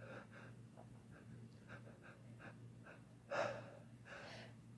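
A person's faint breathing and sniffs, then a sharp gasping inhale about three and a half seconds in and a weaker breathy one after it: the catching breaths that build up to a sneeze.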